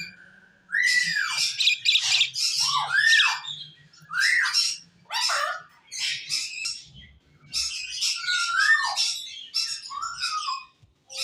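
Small pet parrot giving a run of harsh squawks, about one a second, many of them carrying a short whistle that rises and then falls.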